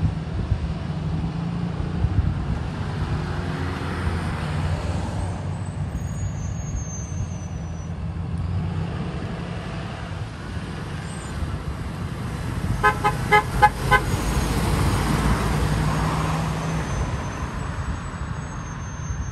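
School bus diesel engines running as the buses pull out and drive by. A little past two-thirds of the way in, a horn gives a quick run of about six short toots.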